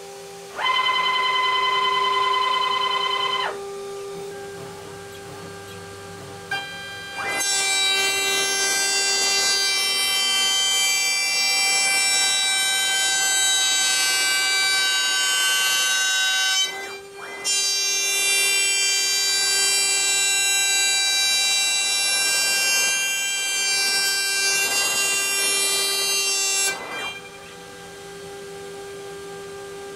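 CNC router with a 2-inch-long straight bit used as a jointer: the spindle runs at a steady whine while the gantry's stepper motors whine through a short move near the start and then two long passes of about ten seconds each along the board's edge. Each pass glides up in pitch as it starts and back down as it stops, with a brief pause for the reversal midway.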